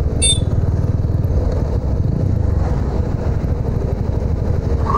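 TVS Apache RTR 200's single-cylinder engine running steadily, a dense low pulsing beat. A brief high chirp sounds just after the start.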